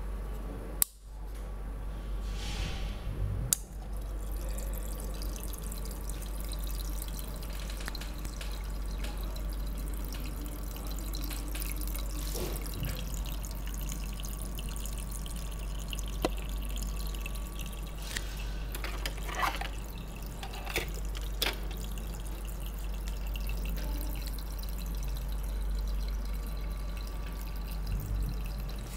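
Water trickling and dripping steadily from a USB mini fish tank's tap-shaped spout back into the tank as its small pump circulates the water. A sharp click about a second in, as the unit is switched on.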